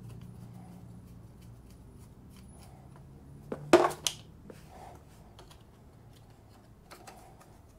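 Screwdriver and hands working at a plastic motorcycle exhaust servo unit and its cover: small scattered clicks and ticks of screws and plastic parts being handled, with one brief louder plastic clatter about four seconds in.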